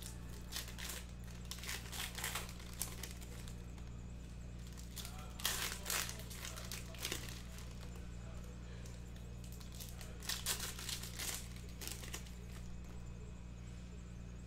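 Bowman Sapphire trading-card pack wrappers crinkling in three spells as packs are torn open and the cards handled, over a steady low hum.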